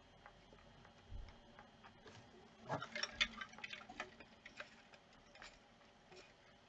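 Faint, irregular clicks of a computer keyboard as a command is entered, sparse at first and clustered in the middle.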